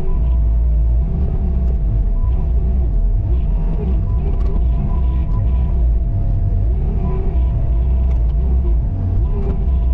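Bobcat T595 skid steer's diesel engine running steadily under working load, with a steady high whine over the low rumble and small rises and falls in pitch.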